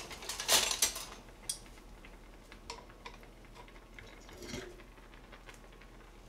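Several light clinks of a metal spoon and dishes in the first second, then quieter kitchen handling sounds with a few faint knocks.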